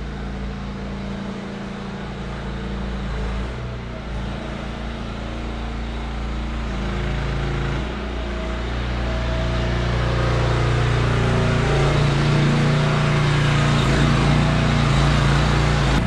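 Steady low mechanical hum of running machinery. Its pitch shifts a couple of times, and it grows louder with more hiss in the second half.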